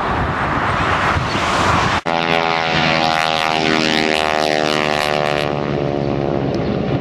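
A rushing wind-like noise on the microphone, then after a sudden cut about two seconds in, the steady drone of two North American Harvard radial-engined propeller trainers flying past in formation. The pitch falls slightly as they pass.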